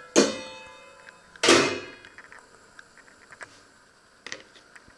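Metal tongs clanging against a metal baking tray: two sharp, ringing clangs about a second apart, then a few light clicks.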